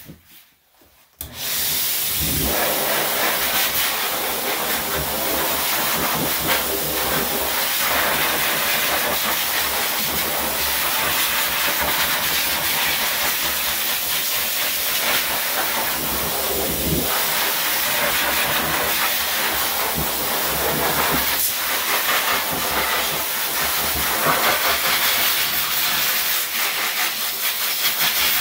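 Pet grooming blow dryer switched on about a second in, then blowing air with a loud, steady hiss.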